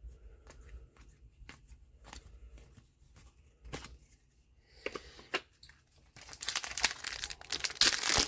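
Faint clicks and slides of trading cards being handled, then, about six seconds in, a loud crinkling tear of a booster pack wrapper being ripped open.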